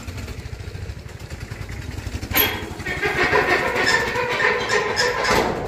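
A corrugated sheet-metal gate scrapes and rattles as it is pushed open, starting about two and a half seconds in and stopping near the end. A steady low rumble runs underneath.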